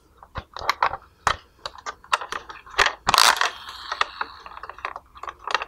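Yellow hard-plastic toy school bus being handled and turned over in the hands: irregular clicks, taps and light rattles of plastic. About three seconds in there is a louder, longer scraping rustle.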